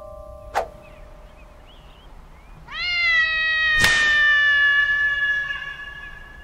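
A cat's single long, loud yowl, rising at first and then held and slowly falling over about three and a half seconds, with a sharp smack about a second into it. Earlier, a held tone stops at a short click about half a second in.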